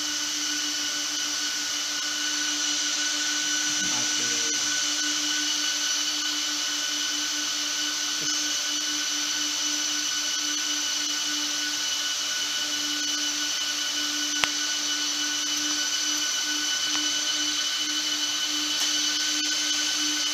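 Cooling fans of an Arista 7150S switch running with a steady whine and hiss while the switch boots after a hard reset. A single sharp click about two-thirds of the way through.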